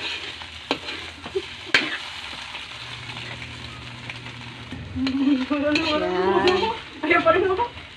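A metal spatula stirs bitter melon and egg frying in a steel wok: a steady sizzle with sharp scrapes and clinks against the pan. About five seconds in, a louder wavering voice-like sound rises over it for two or three seconds.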